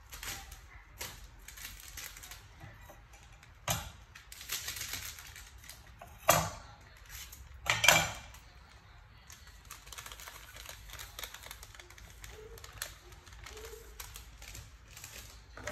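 Light clicks and taps of kitchen handling around a plastic food container as raw fish is seasoned, with sharper knocks about four, six and eight seconds in.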